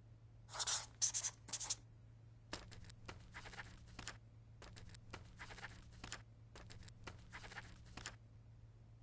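Writing sound effect of a pen scratching on paper: three quick louder scratches, then a long run of short scratchy strokes in groups as words are written out. A faint steady low hum lies underneath.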